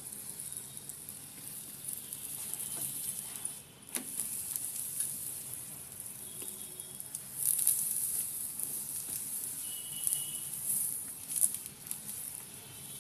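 Oil sizzling and crackling under a roti on a hot tawa, with a sharp click about four seconds in and louder spells of sizzling in the second half.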